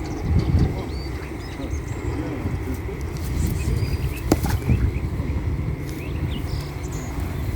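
Small birds chirping in short calls over a steady low outdoor rumble, with one sharp knock about four seconds in.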